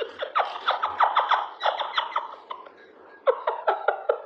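Rapid series of short, squeaky cat chirps, each falling in pitch, about four or five a second, with a brief pause about three seconds in.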